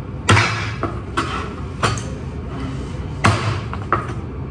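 Kitchen knife chopping through roast pork ribs: about six sharp chops, irregularly spaced, as the blade cuts through the bone.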